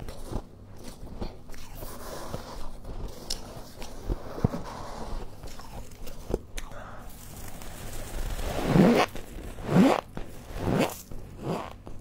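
Freezer frost crunching as it is scraped and scooped by a plastic-gloved hand and bitten and chewed, with four louder crunches in the last few seconds.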